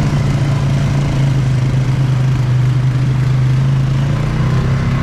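Polaris Sportsman ATV engine running steadily under throttle while driving through a shallow creek, with water splashing around the wheels; the engine pitch rises a little about four seconds in as the ATV climbs out onto a dirt track.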